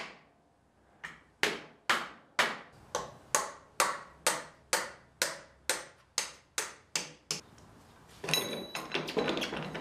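Hammer tapping the rear axle out of a Honda CX500's rear wheel hub: about three sharp, ringing metal taps a second for some six seconds. Near the end there is a rattling clatter as the loosened wheel shifts.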